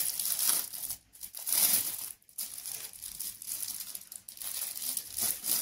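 Plastic packaging crinkling and rustling as a water bottle is pulled out of its clear plastic wrap, in irregular handfuls with brief pauses about one and two seconds in.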